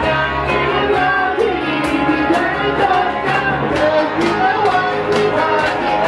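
A live band jamming: electric and acoustic guitars playing a rock song over a steady beat.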